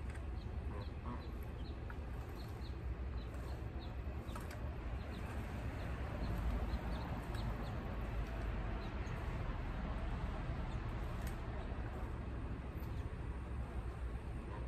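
Rake scratching and scraping over dirt, with short high chirps repeating evenly about two to three times a second in the background that die away about two-thirds of the way in, over a low steady rumble.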